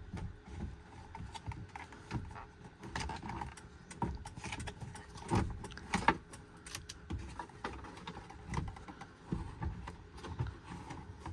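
Plastic instrument cluster of a 2003 Ford F-150 being worked back into the dash by hand: irregular clicks, taps and knocks of hard plastic against plastic, scattered through the whole stretch.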